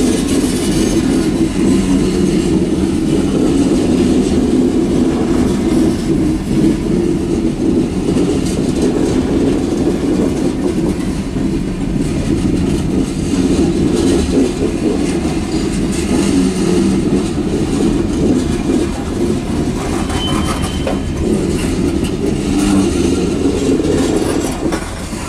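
Covered hopper grain cars of a freight train rolling past, a steady noise of steel wheels on rail that keeps up without let-up.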